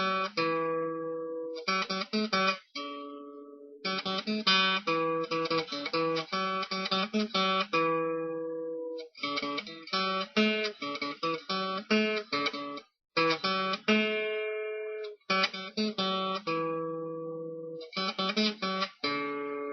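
Acoustic guitar music, strummed and plucked chords with brief pauses between phrases.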